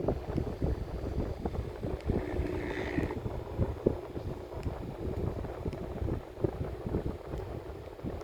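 Electric fan's airflow buffeting the microphone: a steady rumble with irregular gusty thumps. A brief faint higher tone sounds about three seconds in.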